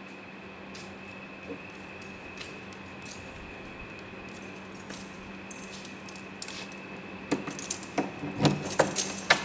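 A bunch of keys jangling, in scattered light clicks at first and then a dense, louder jingle in the last two seconds, over a steady hum.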